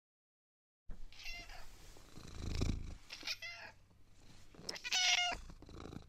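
A cat meowing three times, starting about a second in, high-pitched mews about two seconds apart with the third the loudest, over a low rumble.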